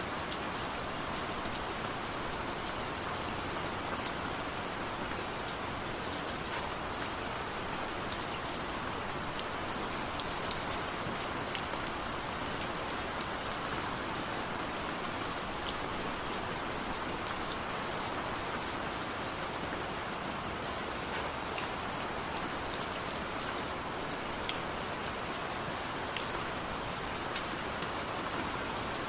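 Steady rain falling, an even hiss with scattered sharp drips and drop hits on surfaces.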